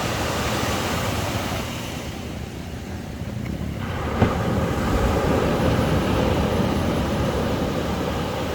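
Ocean surf washing onto a sandy beach: a steady roar that eases briefly, then swells again as a wave breaks and washes in about four seconds in.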